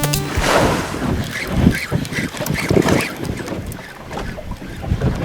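Wind buffeting the microphone and water rushing along the hull of a fishing boat at sea, loudest in a rush of spray about half a second in.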